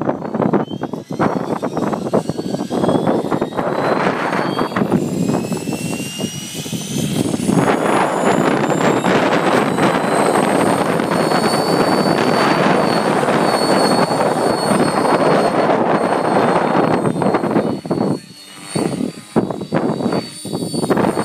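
Thunder Tiger Raptor 50 nitro RC helicopter with a multi-blade main rotor, its two-stroke glow engine and rotor spooling up. A whine rises in pitch over the first several seconds, then holds steady as the helicopter lifts off and flies, with a brief dip in level near the end.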